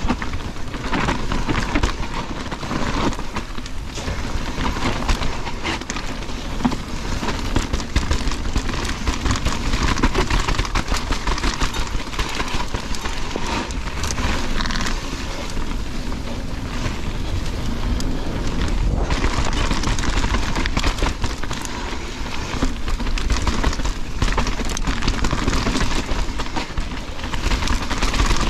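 Mountain bike descending a dirt and loose-gravel trail at speed: continuous tyre noise over stones with the bike rattling and chattering over the rough surface, and wind rumbling on the microphone.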